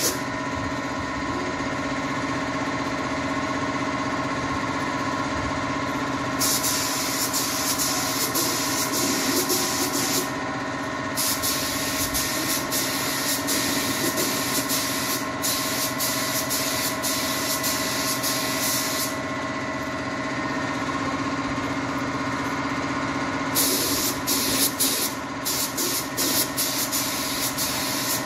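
Gravity-feed spray gun hissing as it sprays enamel onto an MDF cabinet, in three spells: a few seconds from about six seconds in, a long pass of about eight seconds, then quick short trigger pulses near the end. Under it a motor hums steadily, typical of the air compressor feeding the gun.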